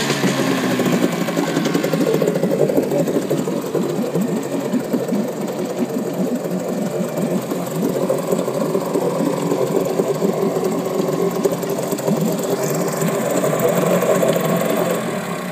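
Mariner 4 two-stroke outboard motor idling with a fast, uneven, rattly beat, its revs settling down in the first moment. It dies away at the very end as it is stopped.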